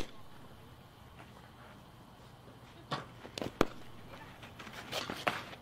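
Short knocks and scuffs of a softball catcher's blocking drill, from the ball striking the dirt and her catcher's gear as she drops to her knees. They come as a sharp click at the start, a few knocks about three seconds in and another cluster near the end, over quiet outdoor ambience.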